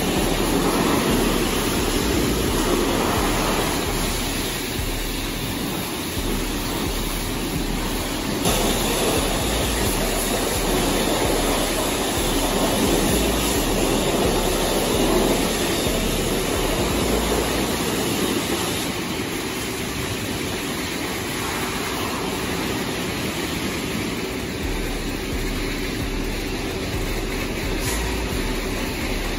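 Pressure-washer wands spraying water onto a semi truck in an enclosed wash bay: a steady, loud rushing hiss with a machinery hum underneath.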